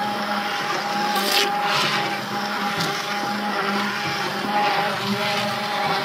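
Electric hand blender running steadily, puréeing boiled sweet potatoes.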